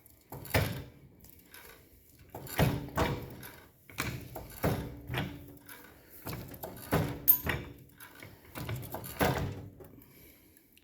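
Harbor Freight Badland 3-ton off-road floor jack being pumped up by its handle: a series of separate metallic clunks, some with a short ring, about one a second.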